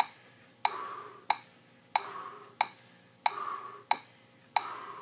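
Metronome ticking steadily at 92 beats per minute, sharp clicks about two-thirds of a second apart. A fainter sound follows every other click.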